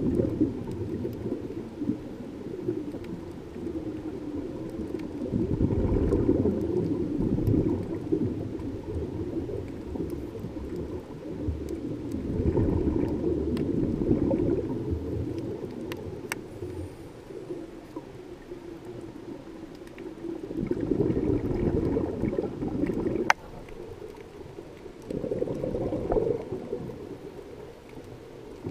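Scuba divers' exhaled breath bubbling from a regulator, in four muffled surges several seconds apart, heard underwater through a GoPro's sealed housing. A low rush of water noise lies between the surges, and there is a single sharp click about two-thirds of the way through.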